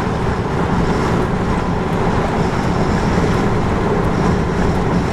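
Steady road and engine noise of a car driving along a highway, heard from inside the cabin.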